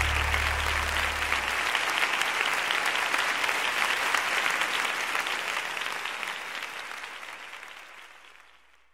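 Applause, dense and steady, fading out over the last few seconds; the song's last low note dies away about a second and a half in.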